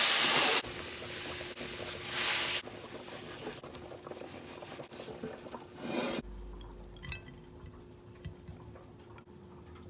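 A loud hiss of liquid rushing out, lasting just under a second, then a softer hiss for about two seconds, followed by faint scattered clicks and light kitchen clatter.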